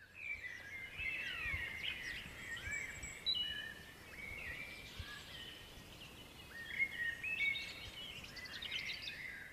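Songbirds singing in woodland: several overlapping chirps, whistles and quick trills.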